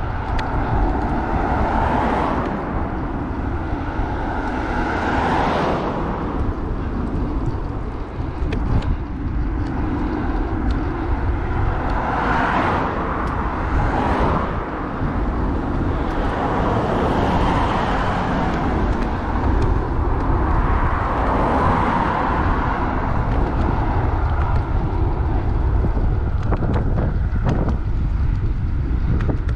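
Wind rumbling on the microphone during a road bike ride, with road traffic noise that swells and fades every few seconds.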